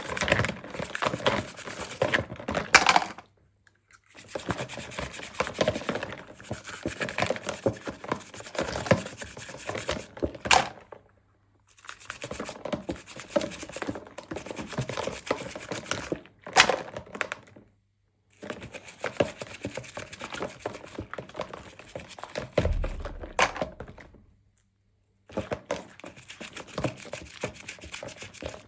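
Hands opening and handling small plastic toy packaging: dense runs of little clicks, taps and crinkles broken by a few short silences, with a sharper tap ending most runs and one dull thump late on.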